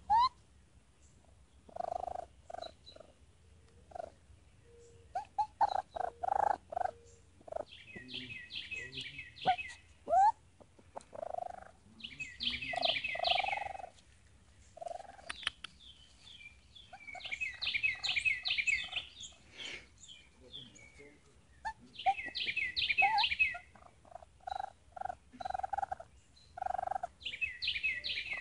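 Baby raccoon calling: short churring squeaks with a few quick rising whimpers, and every four to five seconds a burst of rapid high twittering.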